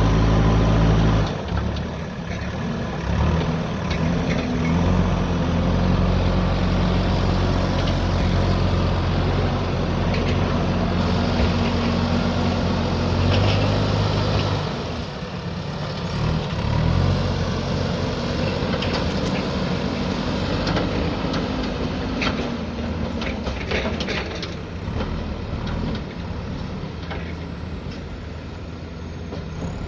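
Diesel engine of a JCB backhoe loader running under working load, its pitch and level shifting as the machine works, with scattered short clanks and knocks, most of them in the middle of the stretch.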